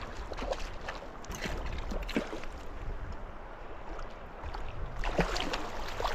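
Water splashing in irregular bursts as a hooked rainbow trout thrashes at the surface of a shallow river, with the heaviest splashing near the end as a landing net is scooped through the water around it.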